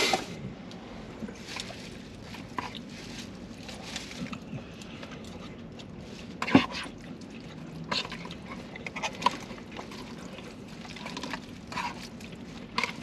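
Eating sounds close to the microphone: wet chewing and slurping of takeout noodles, with a few sharp clicks of a fork against a cardboard takeout box.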